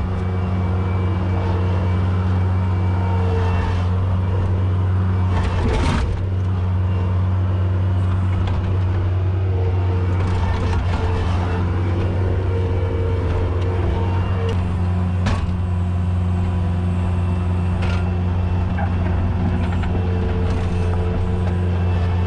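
Diesel engine of a skid steer running steadily, with a sharp metallic clank about six seconds in and another about fifteen seconds in.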